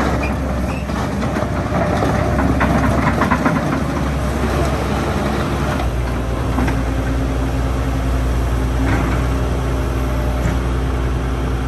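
Hitachi ZX130L-3 excavator's diesel engine running, with clanking and rattling about two to four seconds in, then settling to a steadier note from about six seconds in.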